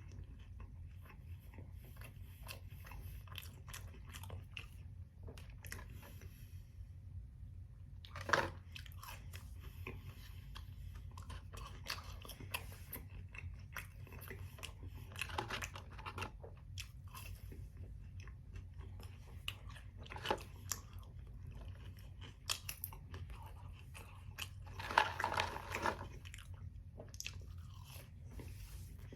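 A man chewing and biting food close to the microphone, with many small wet mouth clicks and a few louder bites, the loudest about three-quarters of the way through.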